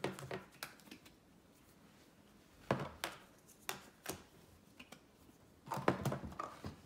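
Small plastic clicks and taps of a Play-Doh tub and its lid being handled and set down on a table, scattered through, with a denser run of taps near the end.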